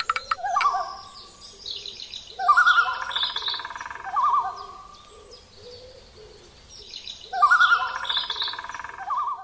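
Bird calls: two long quavering phrases, each about two seconds, with higher chirps above them, after a few clicks at the very start.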